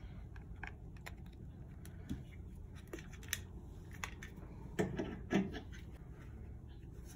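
Hands handling a plastic wireless charging pad and its cable: scattered small clicks and rubbing, with two louder knocks about five seconds in.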